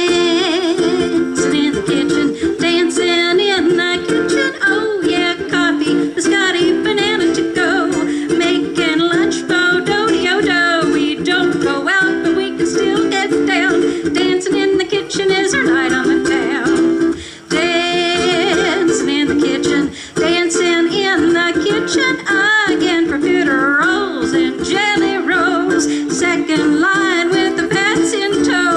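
Ukulele strummed in a steady rhythm with a singing voice over it, a live song performance; the music pauses briefly a little past halfway.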